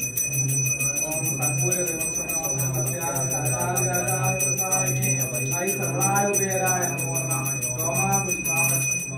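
Puja hand bell (ghanta) rung rapidly and without pause during arati, a steady high ringing. A voice chants over it.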